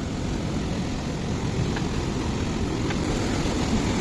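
Steady low rushing of a river in flood, an even rumble of fast water with no breaks.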